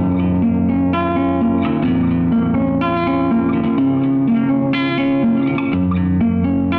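Instrumental background music led by plucked guitar, with notes struck every fraction of a second over a steady bass line.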